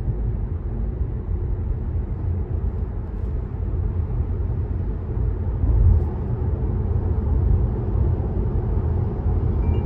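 Car driving at speed on a motorway: a steady low rumble of road and tyre noise.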